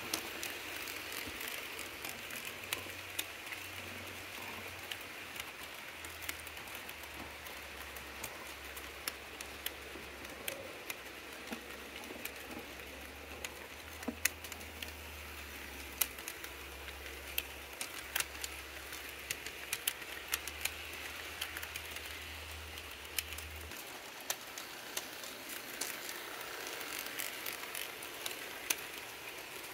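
HO scale model trains rolling on metal track: the wheels click irregularly over rail joints over a steady rolling hiss, with a low motor hum that stops about three-quarters of the way through.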